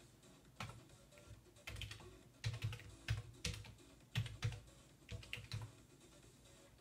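Computer keyboard being typed on: an irregular run of about a dozen keystrokes, most of them in the middle, with short gaps between small clusters.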